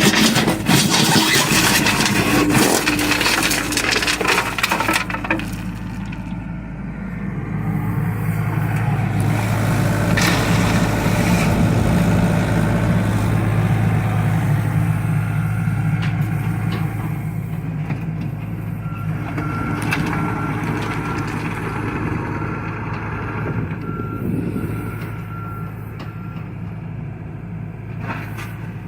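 John Deere excavator's diesel engine running under load, with a burst of clattering and crunching in the first few seconds. The engine swells through the middle, and a backup alarm beeps repeatedly for several seconds in the second half.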